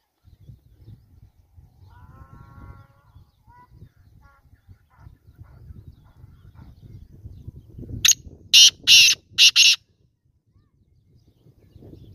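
Black francolin calling: a burst of four loud, harsh, grating notes in quick succession about eight seconds in.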